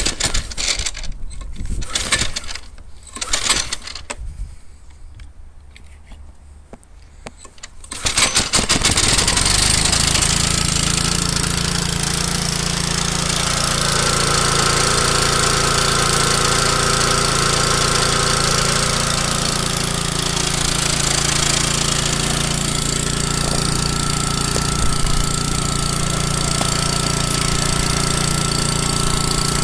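Petrol-engined lawn scarifier (verticutter): a few brief sounds, then about eight seconds in its small engine starts and runs steadily at a constant speed.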